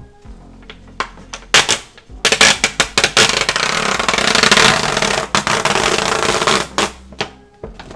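Wet paper towels being peeled off a monitor's LCD panel: crackling, rustling paper. A few short rustles come in the first two seconds, then a long, loud stretch of crackling runs until near the end.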